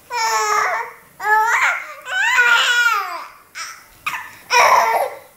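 A young baby squealing and babbling: about five high-pitched vocal bursts, each a second or less, with pitch rising and falling.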